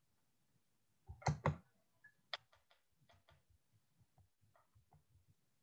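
Computer keyboard typing and clicking: a few loud clicks about a second in, then a run of lighter keystrokes that grows fainter.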